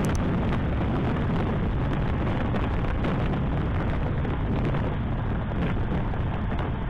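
Heavy wind buffeting on a motorcycle-mounted camera's microphone at freeway speed, a steady loud rumble with road noise underneath.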